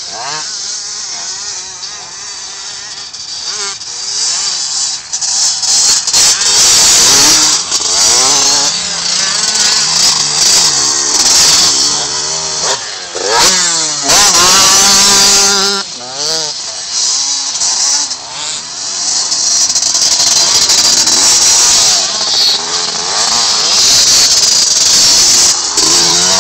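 KTM two-stroke motocross bikes running hard on sand, their engines revving up and down in repeated rising and falling wails as the riders accelerate and shift. The engine note swells loudest around the middle and again near the end.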